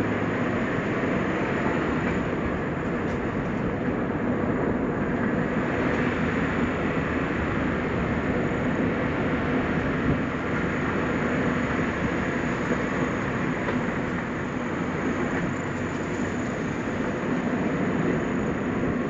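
Steady rumble of a new-model Suzuki Jimny driving along a mountain road: engine and tyre noise with no change of note.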